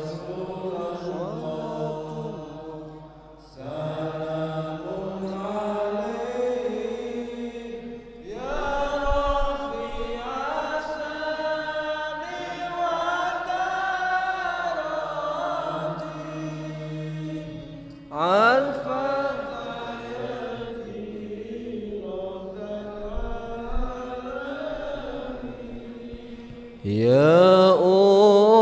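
Sholawat, Arabic devotional verses praising the Prophet, chanted slowly by voices over a microphone. The long, drawn-out melismatic notes bend up and down in phrases of several seconds, each starting afresh, and a louder phrase rises in pitch near the end.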